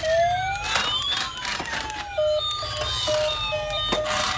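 Electronic siren sounds from battery-powered toy police cars: long sliding wail tones at first, then from about two seconds in a rapid repeating beep pattern at two pitches, over a low hum.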